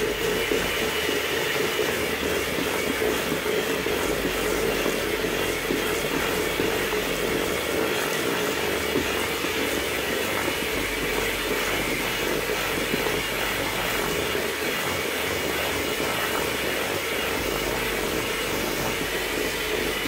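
Hamilton Beach electric hand mixer running steadily, its beaters creaming butter and sugar in a stainless steel bowl.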